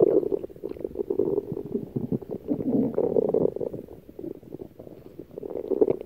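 Stomach growling: a run of irregular, gurgling rumbles that starts suddenly, swells twice, eases off for a moment about four seconds in and builds again near the end.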